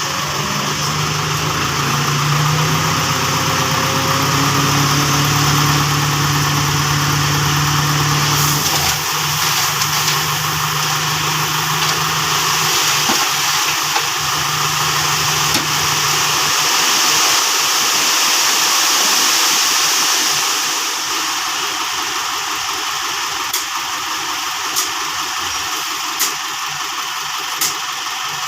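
A motor vehicle's engine running steadily, its hum fading after about twelve seconds into a steady hiss, with a few sharp clicks near the end.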